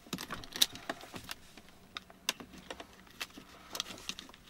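Irregular light clicks and clatter of small tools and trim parts being handled, a dozen or so sharp ticks at uneven intervals.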